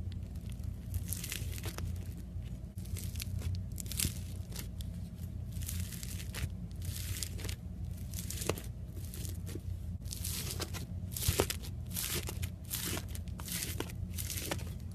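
Homemade slime being worked by hand, pulled and squeezed: irregular sticky crackling and tearing noises, coming in quick uneven bursts over a steady low hum.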